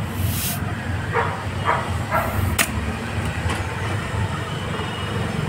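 Short hisses of compressed air at a car tyre's valve as the air-hose chuck is taken off, with a sharp metallic click about two and a half seconds in, over a steady low rumble.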